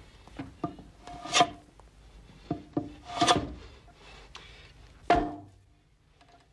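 Hand plane pushed along a wooden board in long scraping strokes. Three loud strokes come about two seconds apart, with lighter scrapes between, and the planing stops near the end.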